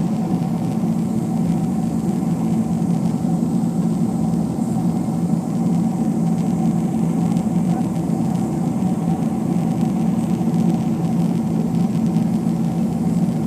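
Jet airliner cabin noise: a steady drone of engines and airflow heard from inside the cabin, with a faint steady whine above it.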